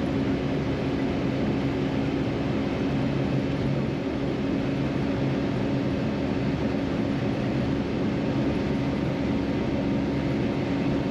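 Cab sound of a Suzuki Carry kei truck cruising at highway speed near 60 mph: the carburetted 660cc three-cylinder engine holds a steady drone at part throttle over road and wind noise.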